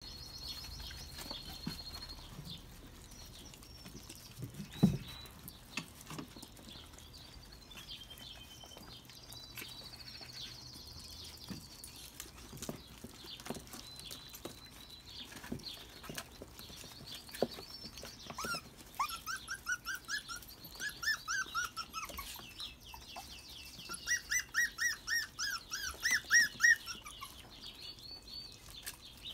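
Five-week-old puppies eating chunks of raw meat, with small knocks and scuffles, one sharper knock about five seconds in. From about two-thirds of the way through, series of short, high calls come several to the second, loudest near the end.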